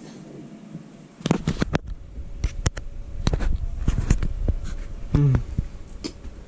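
Scattered sharp clicks and knocks with low thuds, from handling a Logitech G910 mechanical keyboard, starting about a second in. A short pitched sound comes about five seconds in.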